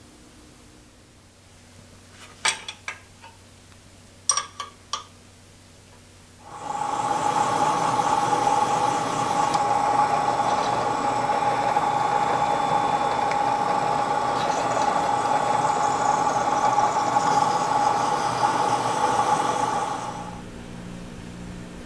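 A few sharp metal clicks from handling parts. Then, about six seconds in, a drill press starts up and runs steadily with a strong whine for about thirteen seconds, reaming out the worn pin hole in a cast-iron lathe headstock casting, before shutting off.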